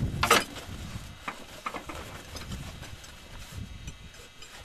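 Rummaging through the storage box of a tent trailer: a loud knock just after the start, then scattered lighter knocks and taps as things are moved about inside.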